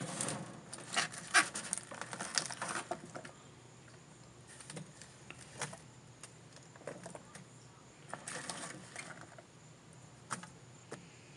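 Handling of a plastic food container and salad leaves, with scattered clicks, taps and rustles as lettuce is dropped into an iguana enclosure. The taps are busiest in the first three seconds, and there is a short rustle a little past eight seconds.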